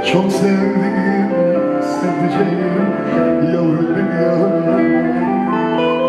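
Live band music: an instrumental passage of a slow Turkish song, a melody of steady held notes over accompaniment, with no singing.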